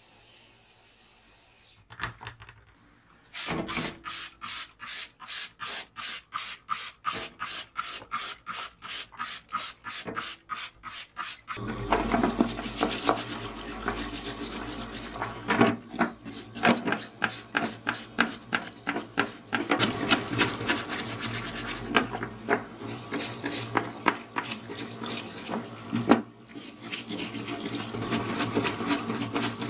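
Nylon brush scrubbing plastic cordless-drill housing halves under a running stream of cleaning fluid in a parts washer: brisk, uneven scrubbing strokes over a steady splash. Earlier there is a short aerosol spray hiss, then a run of even rubbing strokes, about two to three a second, before the running stream starts.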